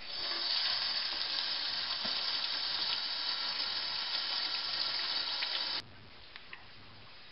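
Kitchen faucet running a steady stream into a stainless steel sink while a glass is rinsed under it. The water sound cuts off suddenly a little before the end, leaving a few light clicks.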